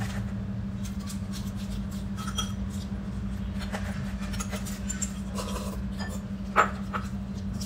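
Eating sounds: scattered light clinks and taps of chopsticks and spoons against bowls and plates over a steady low hum, with one louder knock about six and a half seconds in.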